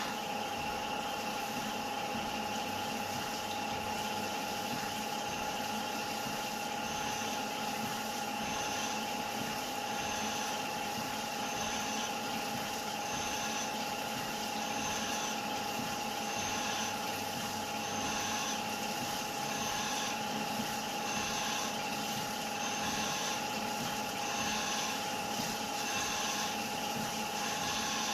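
Small CNC lathe running at a steady speed while turning aluminium, with a constant high whine. A faint higher sound repeats about every one and a half seconds.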